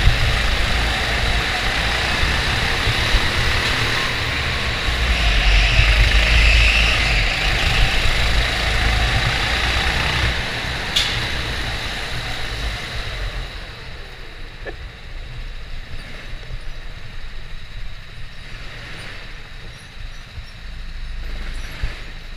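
Go-kart engine running at speed, its note rising and falling through the corners. From about thirteen seconds in it drops to a much quieter run as the kart slows to a crawl. A single sharp click about eleven seconds in.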